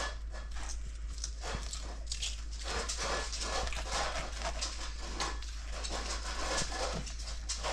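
Carving knife sawing back and forth through a roasted pork leg, making a run of irregular rasping cutting strokes against the cutting board.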